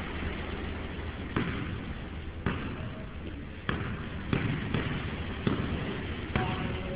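A basketball bouncing on a hard court floor, about seven sharp thuds at uneven intervals, over steady background noise.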